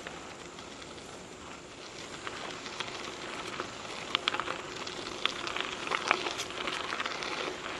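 Trek 4500 mountain bike tyres rolling over a gravel trail: a steady crackling crunch with scattered sharp clicks of stones, growing louder about halfway through.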